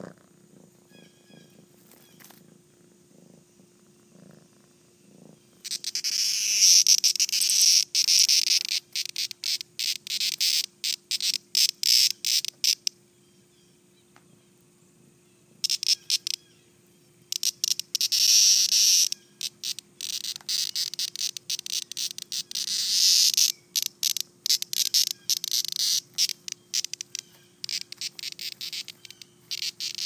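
A cicada's loud distress buzz, starting about six seconds in and coming in rapid, stuttering bouts that keep breaking off and starting again, as it is caught and batted about by a kitten.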